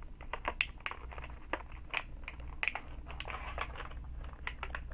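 Irregular small clicks and crinkles of Beyblade parts and their plastic packaging being handled.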